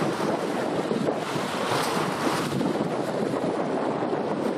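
Wind buffeting the microphone over a steady wash of waves, swelling for a moment about two seconds in.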